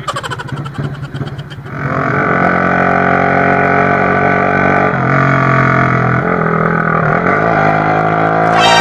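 Motorcycle fitted with an aftermarket Sinaeng exhaust pipe running at full throttle, very loud. The exhaust note is rough for the first couple of seconds, then settles into a steady drone that shifts pitch a couple of times and climbs near the end as the revs rise.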